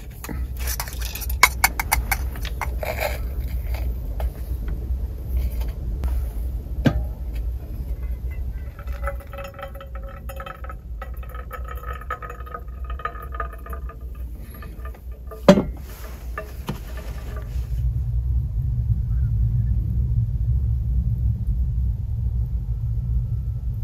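A few clicks and taps from handling a hand coffee grinder, then a stainless kettle pouring hot water onto ground coffee in a pour-over filter for several seconds, over a low steady rumble that grows stronger in the last few seconds.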